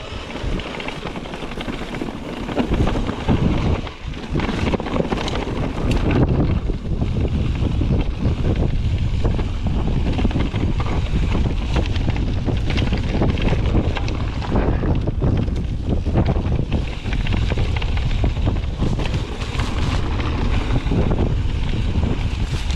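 Strong wind buffeting the microphone over the rumble and clatter of a mountain bike riding a rough, rocky descent, with many small knocks and rattles.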